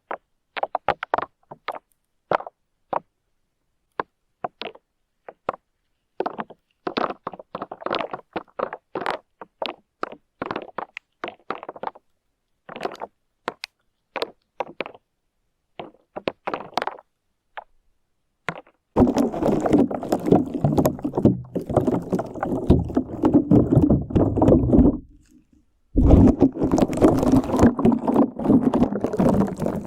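Slime squished and worked right against the microphone for mock ear cleaning: first many short, separate sticky clicks and pops, then about two-thirds in a dense, continuous wet crackling, broken once by a pause of about a second.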